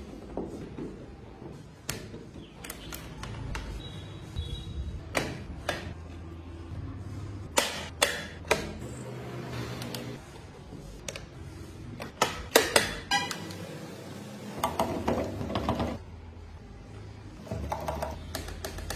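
Irregular sharp clicks, taps and knocks of small wooden parts as hands handle and move the parts of a handmade wooden model pickup truck.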